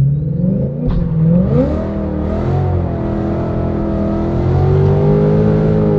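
2014 Shelby GT500 Super Snake's supercharged V8 launched hard from a standstill: the revs climb quickly, then hold high and keep rising slowly while the rear tyres spin, a burnout where the car cannot put its power down on its stock tyres.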